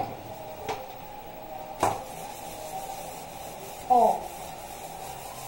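A metal cooking pot being scrubbed by hand at the sink: a steady rubbing, with two light knocks about one and two seconds in.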